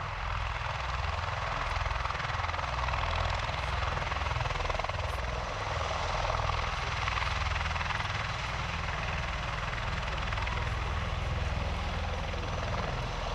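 Bell Boeing MV-22B Osprey tiltrotor running on the runway: its two Rolls-Royce AE1107C turboshafts and proprotors give a steady turbine rush over a low, pulsing rotor beat.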